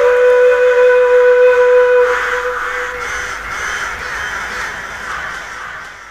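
Background soundtrack: one held note with its overtones over a rushing hiss, fading out to silence at the end.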